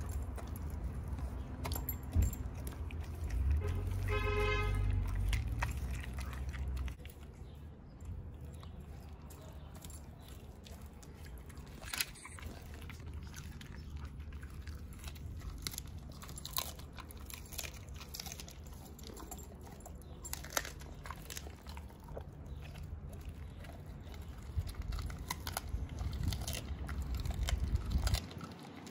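Husky chewing raw chicken backs, with irregular sharp crunches of bone. A brief high-pitched tone comes about four seconds in.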